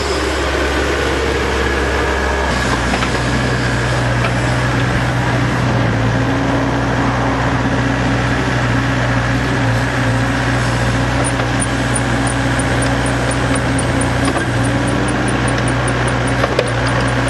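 Takeuchi TB285 mini excavator's diesel engine running steadily under load while it drives a hydraulic REMU screening bucket. The engine note changes once, about two and a half seconds in.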